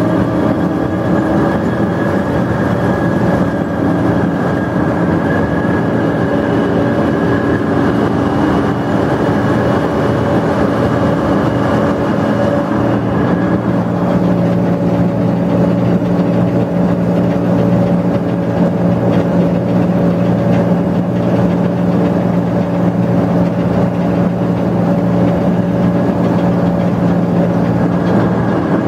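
Combine harvester running steadily while picking up windrows, its engine and threshing machinery giving a constant mechanical hum and whine, with seed pouring from the fill auger into the grain tank. The running note shifts slightly about a third of the way in.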